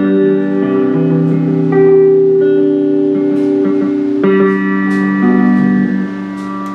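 Electric guitar with newly replaced middle and bridge pickups being played through an amplifier, a run of sustained chords that ring out and fade near the end.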